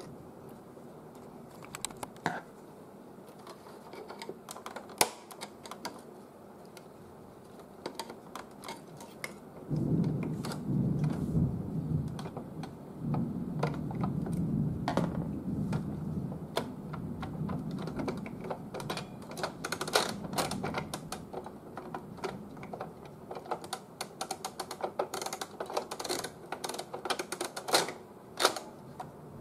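Plastic parts of an Epson L3110 inkjet printer clicking and rattling as they are handled and fitted by hand. The clicks are scattered at first. A denser, louder rattle starts about a third of the way in, and quick clicks come thick near the end.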